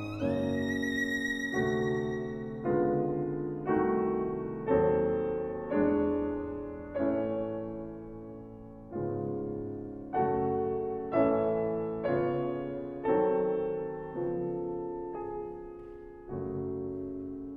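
Grand piano playing a slow series of chords alone, about one a second, each struck and left to ring away. A violin's high held note fades out at the start.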